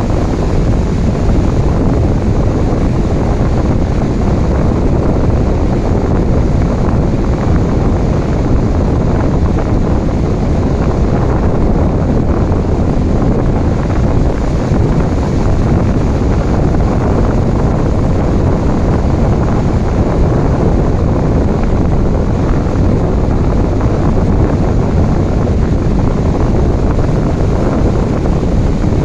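Ocean surf and falling rain blended into one steady, loud wash of noise, without distinct wave surges.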